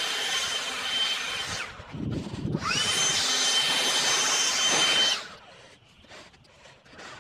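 Handheld leaf blower running with a high, steady whine; it is let off about two seconds in and the whine falls away, then it is triggered again, spinning back up with a rising whine, and runs until it stops about five seconds in.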